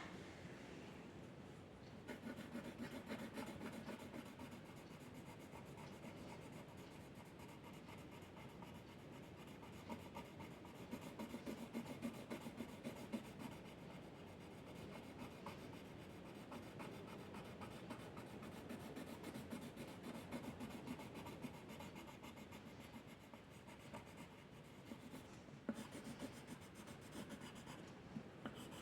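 A drawing tool scratching and rubbing on paper in many quick strokes, with a run of louder strokes about ten to thirteen seconds in.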